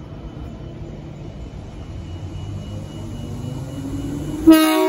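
Transperth A-series electric train arriving at a platform: a low rumble that grows louder with a rising whine, then a sudden loud horn blast near the end.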